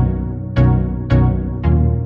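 Background electronic music: synthesizer and piano-like chords struck about twice a second.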